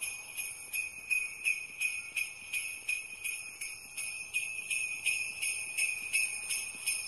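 Sleigh bells shaken in a steady rhythm, about three shakes a second, over a steady high ringing tone, as an intro jingle.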